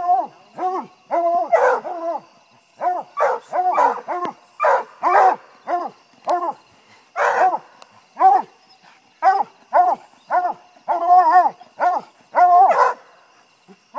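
Young coonhound pup barking treed at a raccoon up a tree: a long run of short, high barks, about two a second, with brief pauses.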